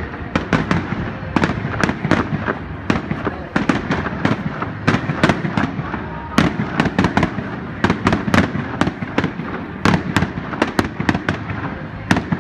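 Fireworks display: aerial shells bursting in a rapid, irregular run of sharp bangs and crackles, several a second without a pause.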